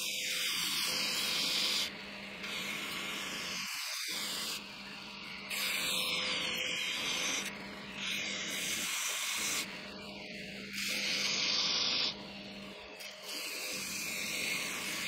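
Belt grinder running with a steady hum while a wooden axe handle is pressed against the moving sanding belt, each pass a loud hiss of a second or two, repeated about six times.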